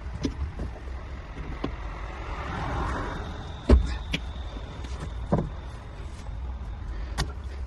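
A few sharp knocks and clicks, the loudest about four seconds in, over a steady low rumble.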